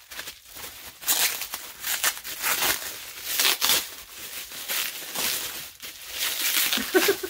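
Heavily taped, see-through plastic wrapping being pulled apart by hand: irregular crinkling, rustling and tearing in uneven bursts.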